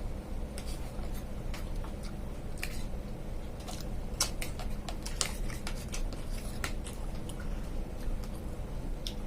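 Close-up eating sounds: mixed fruit and sabudana being chewed, with irregular sharp clicks and smacks.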